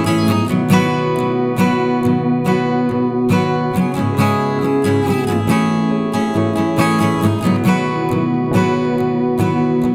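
Background music: strummed acoustic guitar with steady, regularly plucked chords.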